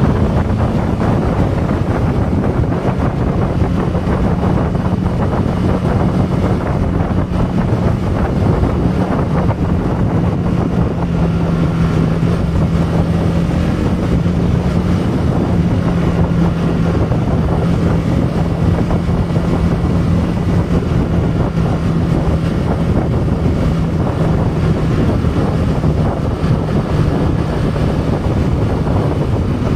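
Heavy wind rushing over the microphone on a moving motorcycle with a stock exhaust, with a faint low, steady engine hum under it that sinks slightly in pitch partway through.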